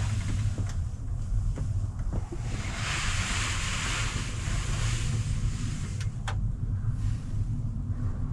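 Wind buffeting the microphone: a steady low rumble, with a rushing hiss swelling about three seconds in and a few faint ticks.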